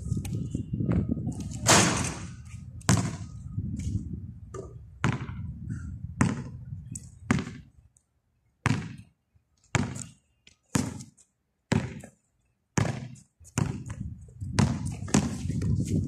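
A basketball bouncing on a concrete court: sharp thuds about once a second, over a low rumble that drops away around the middle and comes back near the end.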